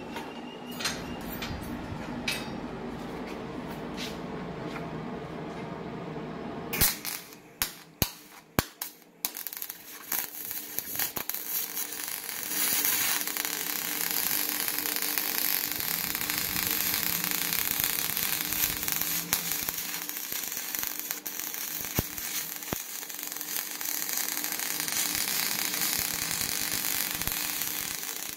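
A wire brush scrubbing a cast aluminium part, then several short sharp cracks as the MIG arc is struck. From about ten seconds in, a steady hissing, crackling MIG welding arc laying a bead on aluminium.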